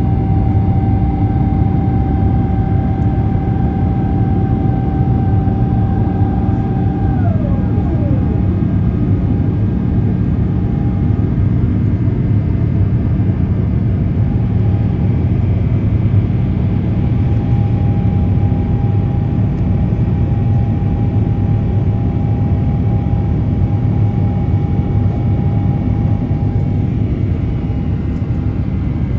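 Airbus A350-900's Rolls-Royce Trent XWB turbofan engines and airflow heard inside the passenger cabin: a loud, steady roar with several steady whining tones over it. About seven seconds in, a tone glides downward.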